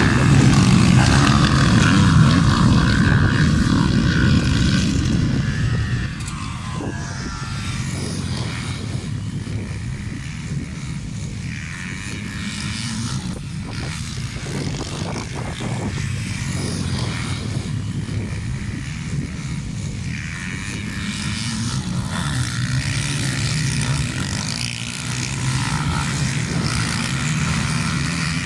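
A pack of motocross bikes racing, many engines revving together, loud and close for the first six seconds or so. Then a more distant, layered buzz of engines rising and falling as the riders go away around the track.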